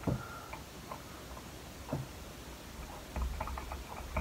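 Faint small clicks and scratchy rustles of paper crafting: paper pieces and a tape runner handled on a cutting mat. A few scattered clicks at first, then a quicker run of small clicks from about three seconds in.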